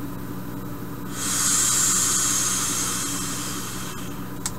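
A long draw on a Troll V2 rebuildable dripping atomizer fired in temperature control: a hiss of air and vapour pulled through its airflow, starting about a second in and fading away over some three seconds. A short click near the end.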